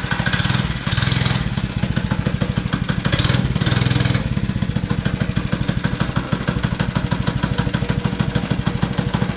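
Monster Moto 80cc mini bike's four-stroke single-cylinder engine running steadily on its freshly cleaned carburetor, with two brief louder surges, about half a second and three seconds in.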